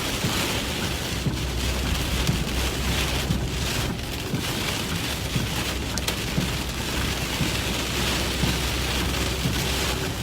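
Heavy rain pelting the chase vehicle in a severe thunderstorm, a dense steady patter with a low rumble underneath.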